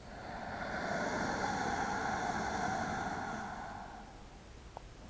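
Ujjayi breath: one long, slow inhale drawn in with the mouth closed through a slightly constricted throat, a steady breathy hiss like a wave coming in. It swells over the first second and fades out about four seconds in.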